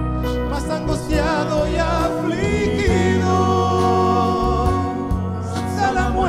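Two women singing a Christian worship song into microphones, holding long wavering notes over steady instrumental accompaniment.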